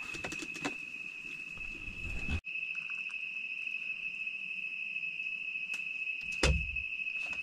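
Crickets trilling in one steady, unbroken high-pitched tone. There are a few small clicks early on, and a single knock about six and a half seconds in.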